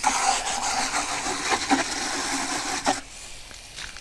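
Garden hose spray nozzle jetting water into a plastic bucket to rinse it: a steady hiss that cuts off about three seconds in.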